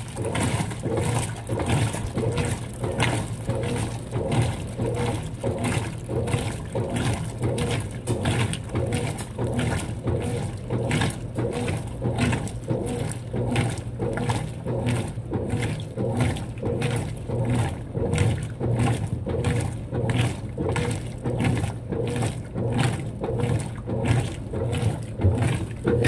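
Consul 16 kg top-load washing machine agitating a sudsy load of socks: a steady motor hum under rhythmic sloshing and churning of water, about two or three surges a second.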